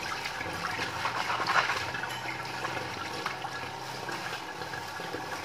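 Water running from a hose and splashing into a plastic colander, with a few light knocks as the colander is handled and set down on the tiled floor.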